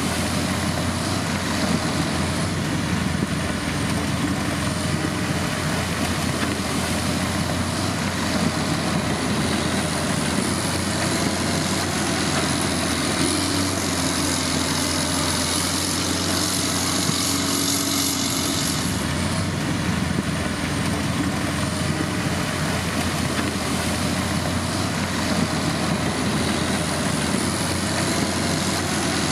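Diesel engine of heavy road-building machinery running steadily, with a thin high whine over it. From about 13 to 19 seconds in, a brighter hiss joins.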